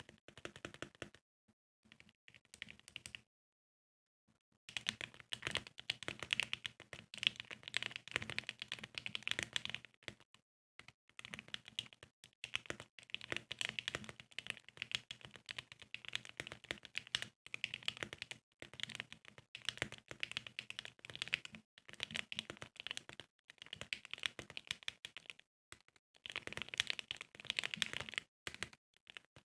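Typing on a plateless custom mechanical keyboard with Akko Radiant Red linear switches in an acrylic stack case: fast runs of keystrokes with short pauses, and a brief stop about three to four seconds in.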